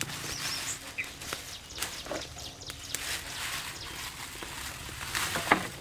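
Thin plastic bag crinkling and rustling as it is lifted, untied and opened, with a few high bird chirps near the start and a sharp knock near the end.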